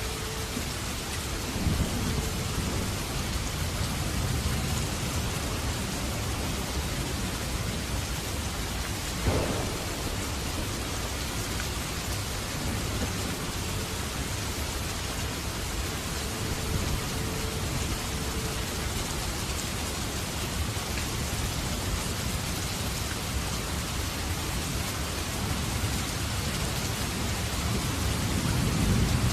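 Steady rain with thunder: a low rumble of thunder swells about two seconds in, a single sharp crack comes about nine seconds in, and another rumble builds near the end.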